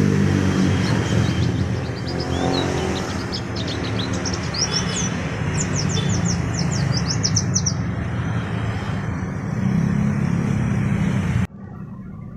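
White-eye (pleci) chirping in quick runs of short, high, downward-sweeping calls, busiest in the middle of the stretch. Under the calls a vehicle engine runs steadily and is the loudest sound. Everything cuts off abruptly about eleven seconds in.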